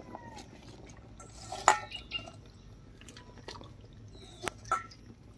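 Cut pumpkin stems dropped by hand from a steel bowl into a wok of hot water: small splashes and drips, with a few light metal clinks, the loudest about a second and a half in.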